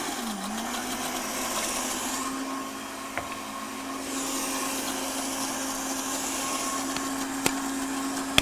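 Countertop blender running, mixing a mayonnaise base of egg, processed cheese and mustard. The motor's pitch dips briefly just after it starts, then holds a steady whine.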